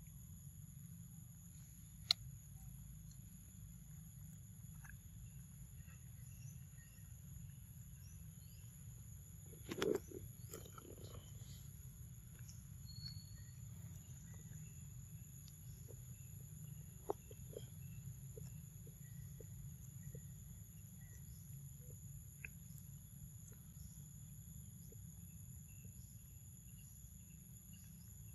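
Steady high-pitched insect drone, two constant tones, over a low steady rumble, with faint scattered clicks and taps. A brief louder knock about ten seconds in, and sharp ticks near the start and in the middle.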